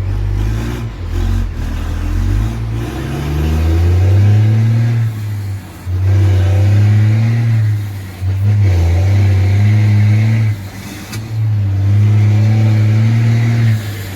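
Diesel truck with a straight-pipe (cano reto) exhaust, rumbling as the engine revs up. The pitch climbs over the first few seconds, then is held in several pulls, each broken by a brief drop.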